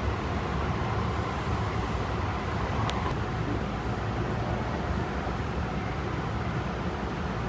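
Steady noise inside a Tobu 50090-series electric train carriage, with two faint clicks about three seconds in.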